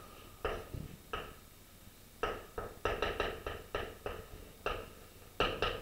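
Chalk writing on a blackboard: an irregular run of sharp taps and short scratches as the chalk strikes and drags across the board, bunched closest together a little past the middle.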